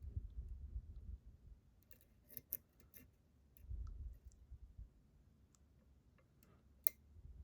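Small metallic clicks and ticks of a hook pick working the pins inside a challenge lock under tension, with low bumps of the lock being handled; one sharper click near the end.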